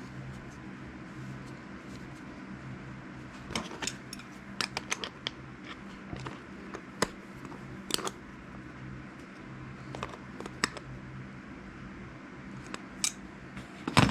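Irregular sharp clicks and clacks of hard plastic and metal parts being handled, starting a few seconds in, as marine 12-volt power sockets are fitted into a mounting plate; the loudest click comes near the end. A steady low hum runs underneath.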